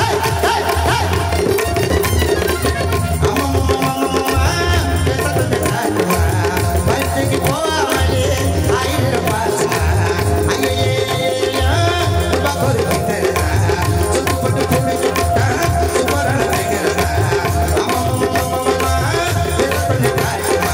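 A man singing a Tamil film song live into a microphone over a light-music orchestra, with a steady, driving percussion rhythm under the voice, heard through the stage sound system.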